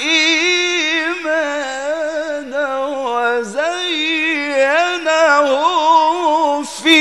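A man's voice in melodic Quran recitation, holding a long, drawn-out phrase with many fast ornamental turns in pitch. The pitch dips and the voice breaks briefly about halfway through, then the run resumes.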